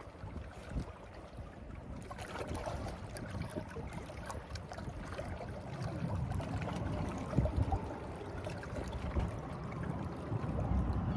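Wind rumbling on the microphone over water lapping and trickling, the water sound growing fuller about two seconds in.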